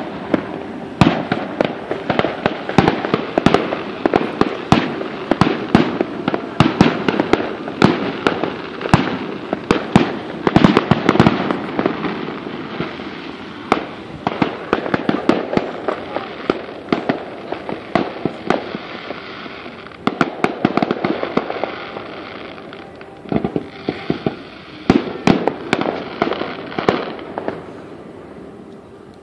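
Fireworks display: a rapid, continuous string of aerial shell bangs and crackling, easing off for a moment about three-quarters of the way through before another cluster of bangs.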